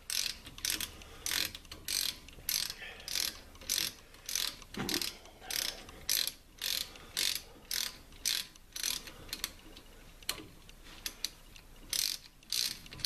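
Hand socket ratchet clicking in quick back-and-forth strokes, about two a second, as it backs out a loosened bolt on a brake caliper.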